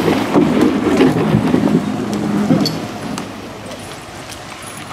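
A motor vehicle's engine running, loudest for the first two and a half seconds and then fading away, with a few light clicks on top.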